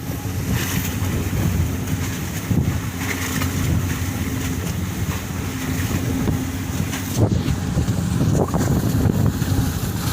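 Strong wind buffeting the microphone over the steady low hum of the Lite Ferry 22's engines.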